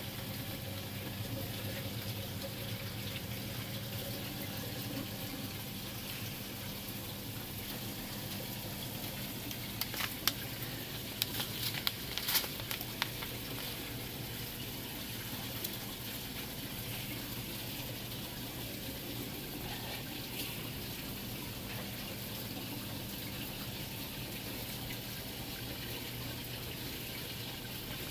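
Steady running and splashing water of a saltwater aquarium's circulation, with a low steady pump hum under it. A short cluster of sharp clicks comes about ten to thirteen seconds in.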